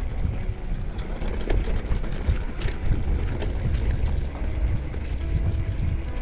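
Wind buffeting the microphone over the rumble and rattle of a mountain bike rolling down a dirt trail, with scattered clicks and knocks from the bike over rough ground.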